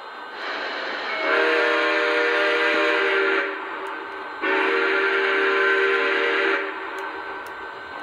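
Sampled steam locomotive chime whistle from a Lionel Legacy O-gauge model engine's sound system: a rush of steam, then two long blasts sounding several notes at once, with about a second's break between them.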